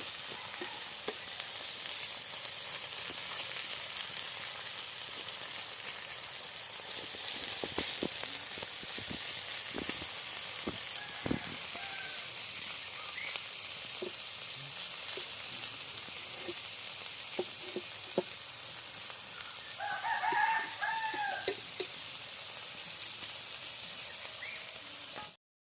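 Fish frying in mustard oil on a tawa, a steady sizzle with a few light knocks. A rooster crows in the background about twenty seconds in.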